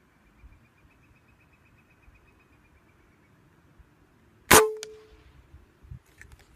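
A single shot from a .25-calibre Benjamin Marauder precharged pneumatic air rifle about four and a half seconds in: a sharp crack with a brief ringing tone, then a fainter knock about a third of a second later. A few faint clicks follow near the end.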